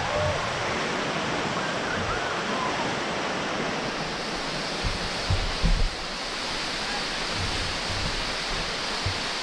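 Waterfall pouring over rock ledges: a steady rush of water, with a few brief low thumps around five to six seconds in.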